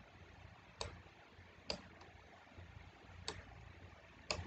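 Computer mouse clicks: four faint, sharp clicks spaced unevenly, the last a quick double.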